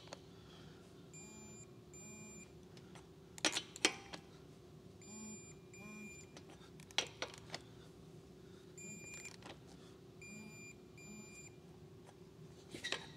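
Digital torque wrench beeping in short double beeps, its handle buzzing, each time a lug nut reaches the set 80 foot-pounds: about four such pairs. Between them come a few sharp clacks of the socket going onto the next lug nut.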